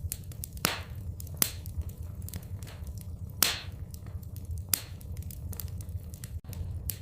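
Wood fire in a fireplace crackling, with irregular sharp snaps and a few louder pops over a steady low rumble.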